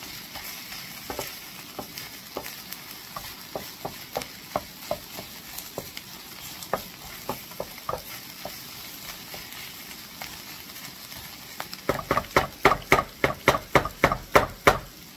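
Ground turkey sausage and vegetables sizzling in a skillet while a spoon clinks and scrapes against the pan in stirring. About twelve seconds in, the stirring turns brisk and louder, about four strokes a second.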